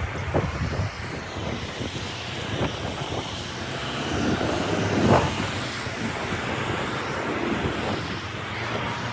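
Outdoor city street noise: a steady rumble of road traffic, swelling briefly now and then.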